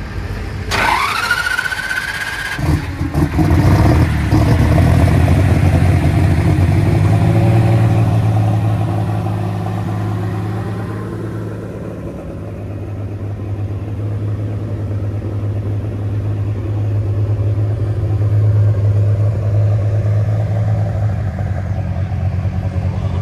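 Unlimited super stock pulling tractor's diesel engine starting: a high whine rises for about two seconds, stops sharply, and the engine then runs steadily with a deep, even drone.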